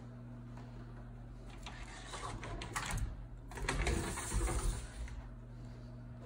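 Louvered bifold closet door being folded open, rattling and scraping along its track with a run of clicks from the hinges and pivots, from about one and a half seconds in to about five seconds.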